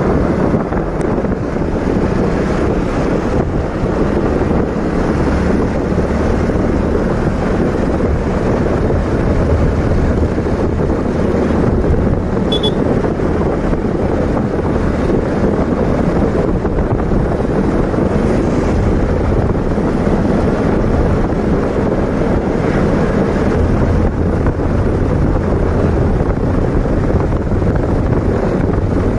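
Wind buffeting the microphone on a moving motorcycle, a loud steady rush, with the bike's engine running underneath.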